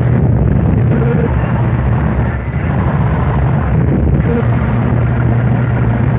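Harsh noise music: a loud, dense wall of distorted noise over a low droning hum. The hum drops out for about two seconds in the middle, then returns.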